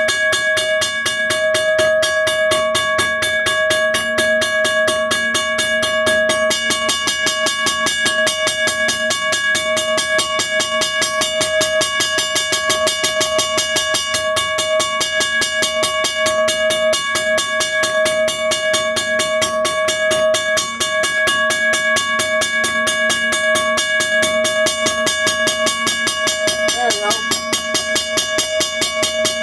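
A 1982 first-generation Western Cullen Hayes mechanical crossing bell rings loudly and steadily. Its motor-driven hammer strikes the gong in a fast, even rhythm, and the ringing tone holds between strikes.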